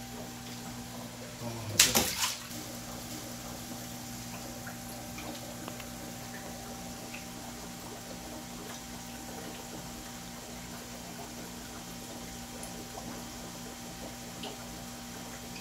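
Water sloshing and bubbling in a live-eel holding tank as eels are lifted out by hand and dropped into a wire basket, over a constant hum of the tank's machinery. A loud wet slap of splashing comes about two seconds in.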